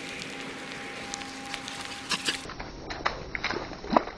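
Footsteps and rustling through wet grass: a steady faint hiss and hum with scattered light taps, changing abruptly about halfway in to denser, louder irregular steps and knocks, with one heavier thump near the end.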